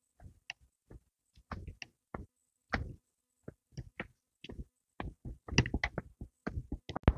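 Footsteps on a gravelly, leaf-strewn path: a string of short, uneven crunches and taps that come faster toward the end.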